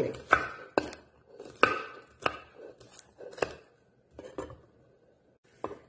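Chef's knife chopping garlic cloves on a wooden cutting board: separate sharp knocks of the blade against the board, about one or two a second, stopping for a moment near the end.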